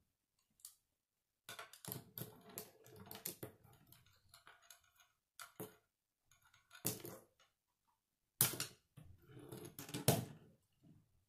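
Plastic K'nex rods and connectors clicking and clattering as they are handled and fitted together, in irregular bursts with quiet gaps, loudest toward the end.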